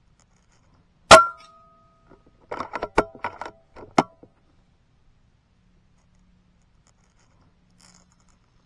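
Shrouded .22 PCP air rifle (Kalibrgun Cricket II Tactical 70 WST) firing once, a sharp crack with a brief metallic ring. About a second and a half later comes a quick run of metallic clicks and clacks as the side lever is worked to cock the rifle and load the next pellet.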